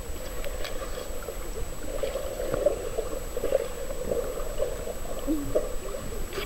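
Muffled underwater gurgling and bubbling of pool water stirred by a dog diving to the bottom, heard through a submerged camera.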